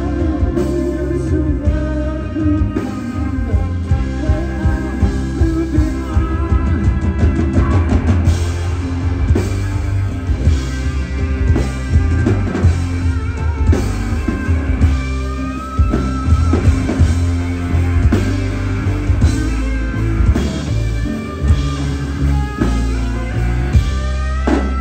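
Live rock band playing an instrumental passage, with electric and acoustic guitars, a drum kit and a violin over a heavy bass.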